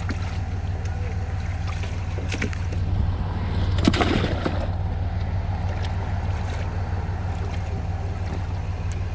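Fish and livewell water splashing into a mesh weigh-in bag about four seconds in, over a steady low hum. Bag straps and mesh rustle and click as the bag is handled.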